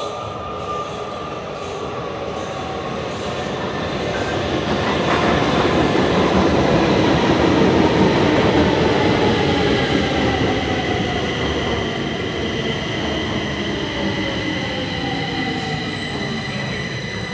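Metro train pulling into an underground station and braking. The running noise swells to its loudest as the cars pass about six to ten seconds in, then eases as the train slows. A whine falls steadily in pitch throughout, and a high steady squeal comes in during the second half.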